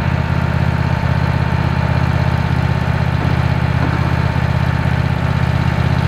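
Wood-Mizer LX150 sawmill's engine idling steadily.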